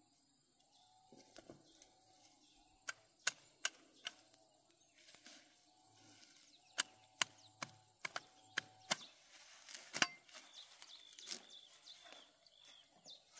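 A series of sharp knocks at uneven intervals, with short repeated animal calls between them, higher-pitched calls near the end.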